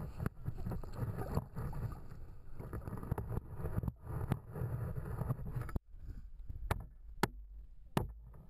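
Water sloshing against an underwater camera's housing in shallow water, a muffled, rushing low rumble. About six seconds in it drops away suddenly, leaving a quieter background with three sharp clicks.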